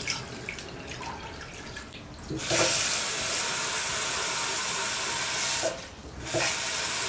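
Kitchen tap water running into an aluminium cooking pot holding beef, to fill it for boiling. The flow is soft at first, turns loud about two and a half seconds in, breaks off briefly about two-thirds through and comes back near the end.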